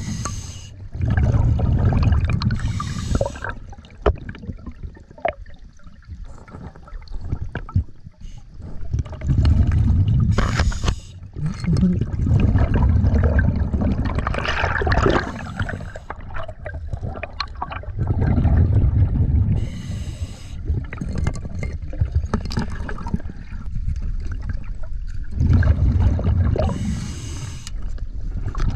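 Scuba diver breathing underwater through a regulator: a short hiss on each inhale and a long bubbling rumble of exhaled air, repeating several times.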